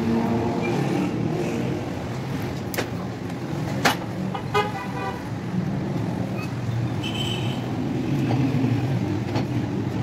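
Steady road traffic with a short car-horn toot about four and a half seconds in. Two sharp clicks come just before it, the louder one about four seconds in.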